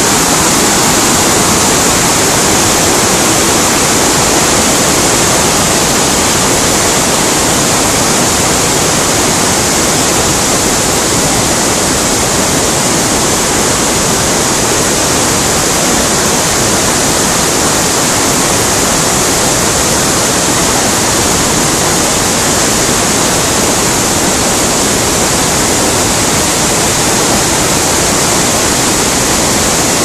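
Loud, steady rush of a tall mountain waterfall and the torrent below it crashing over boulders.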